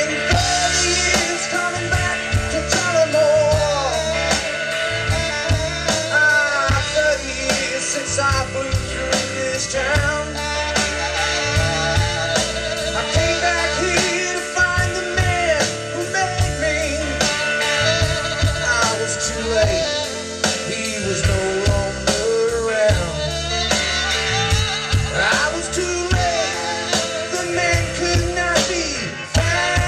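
Live band playing an instrumental break: a saxophone plays a bending lead line over electric guitar, bass guitar and a drum kit keeping a steady beat.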